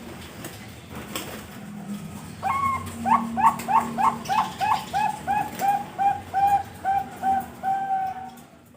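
Perkutut bangkok (zebra dove) singing: after a couple of seconds of background, one opening note then a long run of quick, rhythmic coos, sharply bent in pitch at first, then flatter and a little more spaced out toward the end, where the song stops.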